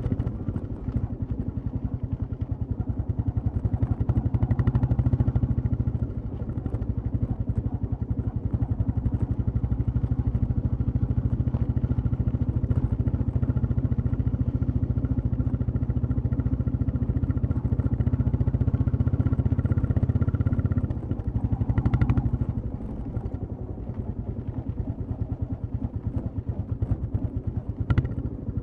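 Royal Enfield Classic 350's single-cylinder engine and exhaust running steadily as the motorcycle rides along, with the throttle easing off briefly about six seconds in and again about three-quarters of the way through. A couple of brief knocks sound near the end.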